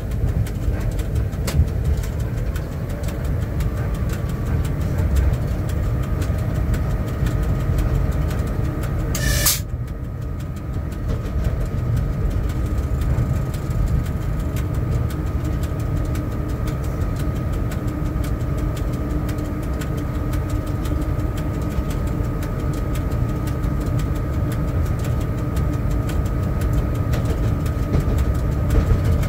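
Cab of a ChS4 electric locomotive under way: a steady low rumble, joined a few seconds in by a steady high whine. A single brief sharp noise comes about nine seconds in.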